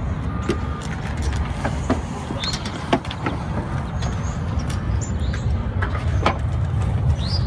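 Dodge Ram's 5.7 L Hemi V8 idling with a steady low rumble, with scattered clicks and taps of parts being handled under the hood.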